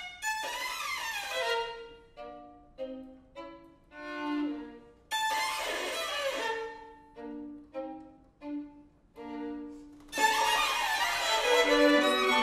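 String quartet of two violins, viola and cello playing a contemporary piece. Sudden loud attacks with falling pitch slides come near the start and about five seconds in, with short separate notes and pauses between them. A dense, loud passage of many overlapping notes begins about ten seconds in.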